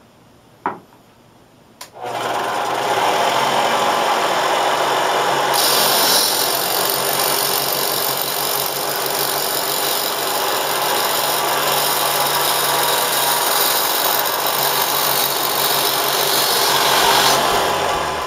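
Studio Pro Precision 2000 band saw with a metal blade starting about two seconds in and running steadily. From about five seconds in, a harsher high hiss joins as the blade cuts through a brass tube lubricated with cutting oil, dying away near the end.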